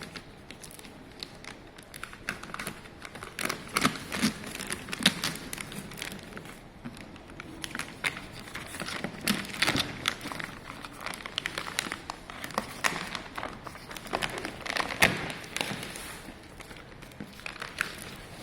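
A cardboard box and its packaging being handled during unboxing: irregular taps and knocks with plastic crinkling.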